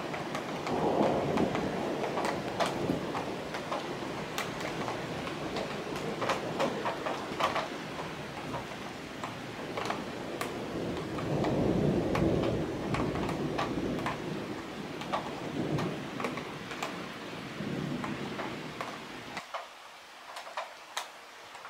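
Torrential thunderstorm rain: a steady rushing downpour full of sharp drop hits, with deeper rushing swells rising and falling. Near the end the rush drops away, leaving only scattered drips.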